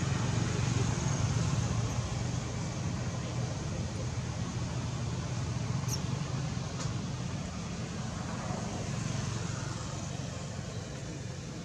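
Steady low engine drone from a distant motor, slowly fading, over outdoor background noise. Two brief high chirps come about six and seven seconds in.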